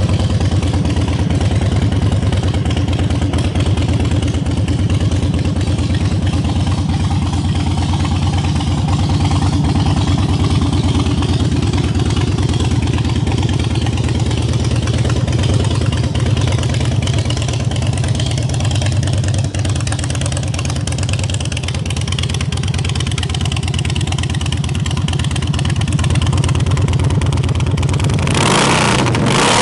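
Harley-Davidson Twin Cam 88 V-twin engine of a 2005 Dyna Wide Glide running at a steady idle, its firing pulses even and unchanging. Near the end the sound turns harsher and noisier, heard right at the slash-cut chrome exhaust outlets.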